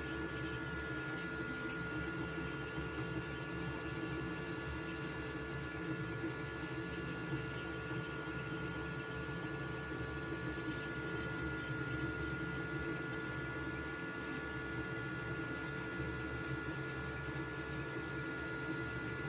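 FLSUN QQ-S delta 3D printer running a print: a steady hum with a constant high whine from its motors and cooling fans.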